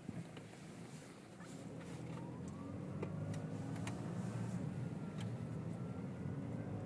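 2009 Volkswagen Jetta 2.0 TDI four-cylinder diesel with a straight-piped exhaust, running cold and coming up in revs; its turbo whistle rises in pitch about a second and a half in. A few sharp ticks are heard.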